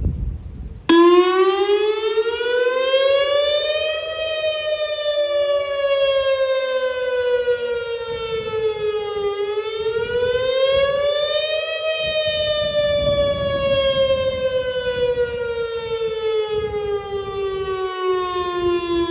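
Whelen WPS-2910 electronic outdoor warning siren sounding its short wail test signal. It cuts in about a second in, its pitch rises, falls, rises again, and then slides slowly down.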